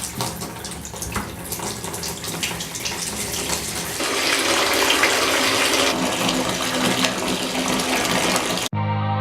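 Bath tap running, filling a bathtub with a steady gush of water that gets louder about four seconds in. It cuts off suddenly near the end.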